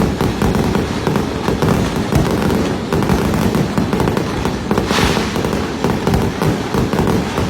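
Fireworks display going off in dense, rapid succession: a continuous mass of bangs and crackles with heavy low rumble. A hissing burst stands out about five seconds in.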